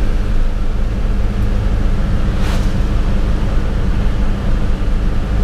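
Cab interior of a 1977 Dodge D200 pickup on the move while towing a loaded trailer. Its stock 318 V8 with a two-barrel carburettor runs steadily under load over a constant road and drivetrain drone. A short hiss comes about two and a half seconds in.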